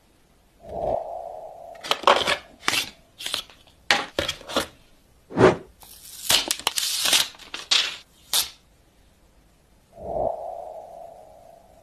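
Unboxing handling noise: the phone's plastic wrap and protective film crinkling and tearing as they are peeled, with sharp clicks and crackles from the packaging. About a second in and again near the end, a short low swell settles into a brief ringing tone.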